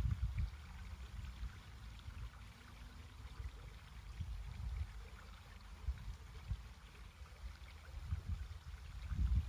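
Flowing stream water running faintly and steadily, under uneven low rumbling of wind buffeting the microphone.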